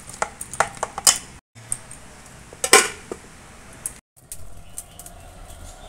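A hand squishing and mixing marinated mutton in a stainless steel bowl, then a single metallic clank with a short ring as a steel lid is set down over the bowl.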